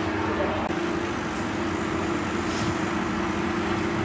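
DeLonghi Icona Vintage ECOV 311 espresso machine's vibratory pump humming steadily while pulling a double shot, just before the coffee starts to flow.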